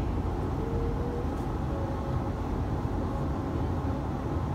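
Metro train running, heard from inside the carriage: a steady low rumble of wheels on rails.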